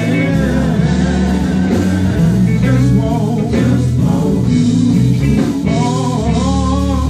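Live gospel quartet music: a lead singer's long, bending sung lines over group and band backing with a steady bass line, played loud.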